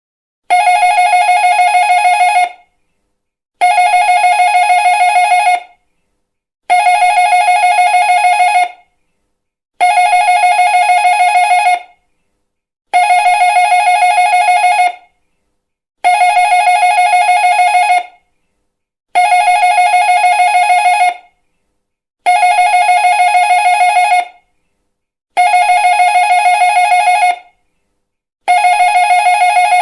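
Electric doorbell ringing with a fast trill, in identical rings of about two seconds repeated about every three seconds, ten times in all.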